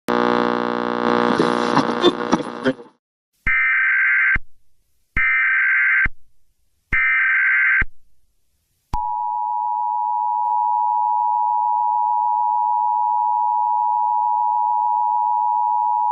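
Emergency Alert System tones: a harsh buzzing sound for the first three seconds, then three one-second bursts of the screeching SAME header data tone, then the EAS two-tone attention signal, a steady harsh dual tone that starts about nine seconds in and holds.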